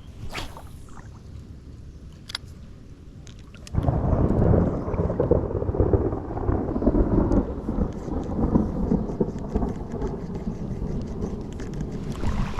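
Thunder rumbling loudly, starting suddenly about four seconds in and rolling on for the rest of the stretch, over a lighter wash of rain before it.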